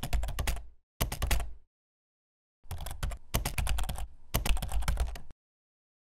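Computer keyboard typing sound effect: quick runs of key clicks in several bursts, separated by dead silence, stopping about five seconds in.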